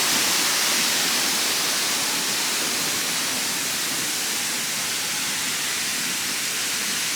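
Waterfall rushing: a steady, dense hiss of falling water.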